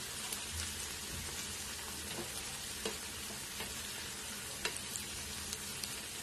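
Sliced onions deep-frying in hot oil in a kadhai, a steady sizzle with a few scattered small pops, as a wire-mesh spider skimmer stirs through them.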